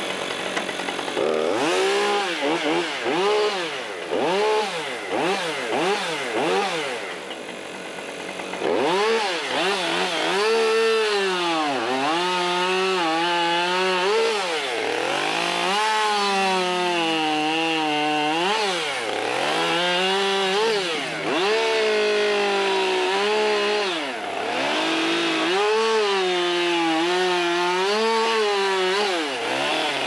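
Petrol chainsaw cutting into a redwood log, its engine pitch rising and falling again and again as the carver works the cut. There is a short quieter lull about a third of the way in.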